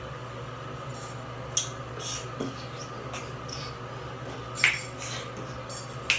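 Metal bangle bracelets clinking together as the arms move, a few scattered clinks with the loudest about four and a half seconds in, over a steady low hum.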